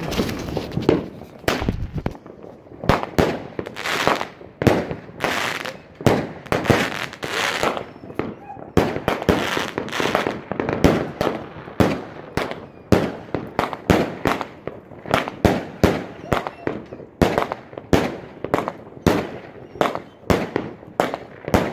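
Fireworks going off: a long, irregular string of sharp bangs, roughly one or two a second, as the shells burst in the sky.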